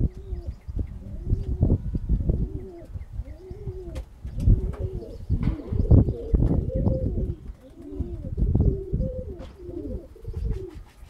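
Domestic pigeons cooing over and over, their calls overlapping, with low rumbling thumps underneath.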